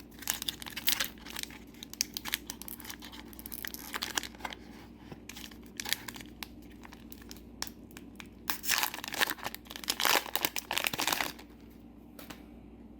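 A Disney Lorcana booster pack's foil wrapper is torn open and crinkled by hand. It crackles throughout, with two longer, louder rips a little after eight seconds in.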